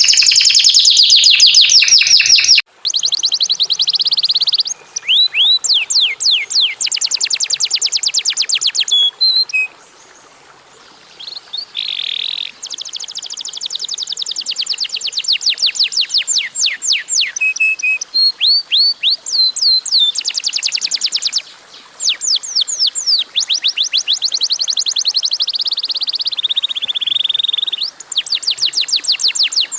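Domestic canary singing: loud, fast trills of rapidly repeated downward-sweeping notes, one rolling phrase after another, with a short pause about ten seconds in.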